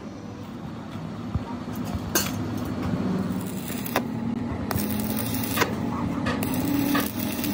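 A machine running with a steady low hum, with several sharp metallic clicks and knocks at irregular intervals.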